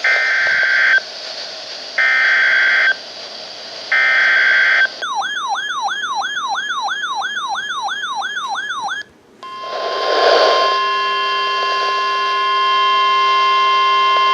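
Emergency Alert System broadcast tones between two severe thunderstorm warnings. First come three one-second bursts of buzzy digital SAME header data, a second apart. Then a fast-warbling, siren-like alert tone for about four seconds, and from about nine seconds in a steady, piercing warning alarm tone.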